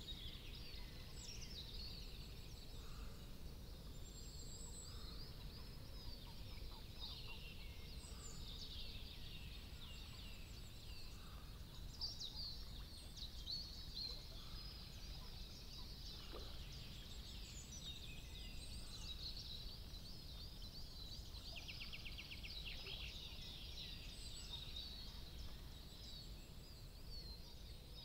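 Faint outdoor ambience of many small birds chirping and singing at once, with one quick trill about two-thirds of the way through over a low steady background rumble.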